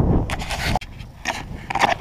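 Wind buffeting the microphone, cutting off sharply under a second in, followed by a few short scraping, rustling sounds.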